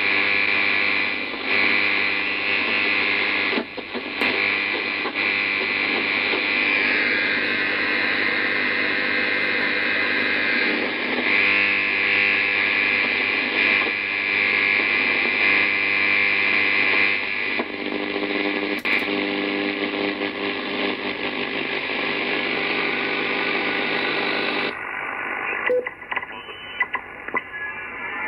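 HF transceiver receiving band noise and interference: a steady rushing hiss with a hum of steady tones beneath it. About 25 seconds in, the sound turns duller as its top end is cut off.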